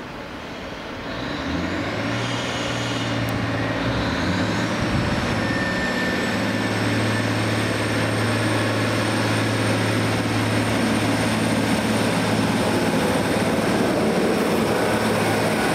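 SKPL SN83 diesel multiple unit's engine throttling up about a second and a half in as the railcar pulls away, then a steady engine drone with a faint rising whine as it draws near and passes.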